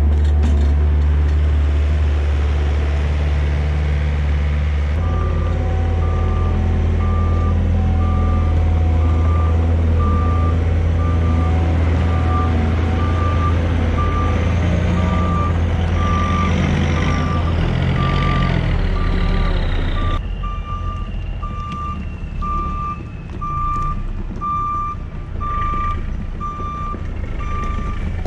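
A truck engine running steadily, joined about five seconds in by its reversing alarm beeping about once a second as it backs up. The engine falls quieter about twenty seconds in while the beeping carries on.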